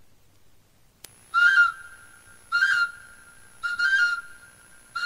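Whistle blowing four short, high notes at the same pitch, evenly spaced about one a second, starting about a second in.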